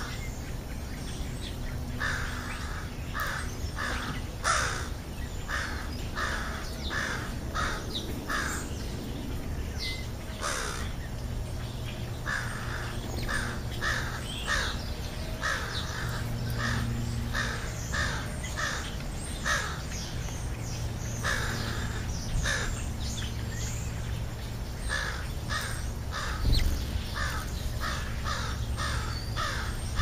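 American crows cawing in runs of short calls, several a second, with pauses between the runs. Thin sliding whistles from other birds come through now and then over a steady low rumble.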